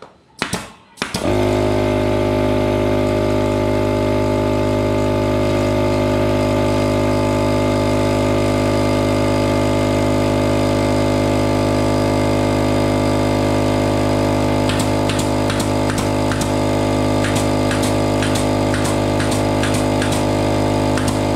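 Small electric air compressor kicking on about a second in and running with a loud, steady motor hum as it builds tank pressure. In the last few seconds a pneumatic nail gun fires a quick series of sharp shots over it, and the compressor cuts off at the very end.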